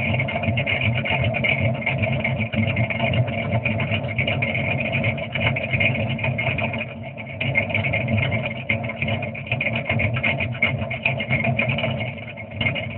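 1994 Chevrolet Camaro with a small aftermarket camshaft idling, heard at its dual exhaust tips; the idle is steady but its loudness rises and dips unevenly.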